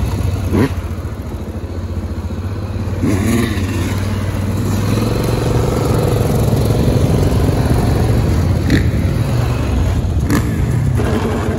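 Dirt bike engine running steadily, with a few brief sharp knocks or clicks over it.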